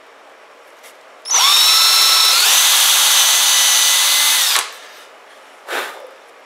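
Power drill widening a pilot hole in a headless tamper-proof screw on a GY6 scooter carburetor with a slightly bigger bit. The motor whine starts about a second in, steps up in pitch partway through, runs about three seconds and stops, with a brief rustle shortly after.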